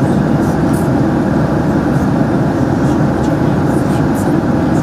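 Steady cabin noise of a Boeing 767-300ER in flight, the engine and airflow rush heard from a seat inside the passenger cabin, even and unchanging, with most of its weight low in pitch.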